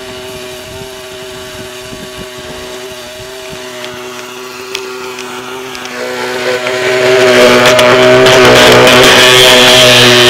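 Nitro RC helicopter glow engine running steadily, then getting much louder about seven seconds in.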